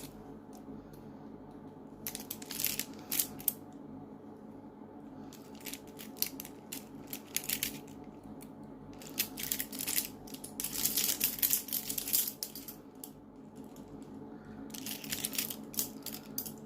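Steel handcuffs being shimmed and picked open against the clock: clusters of quick metallic clicking and rattling as the ratchets release and the cuffs are handled, in several bursts with short pauses between. A steady low hum underneath.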